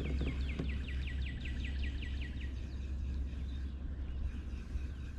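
A songbird sings a quick trill of about fourteen down-slurred notes, about six a second, which stops about halfway through, over a steady low rumble.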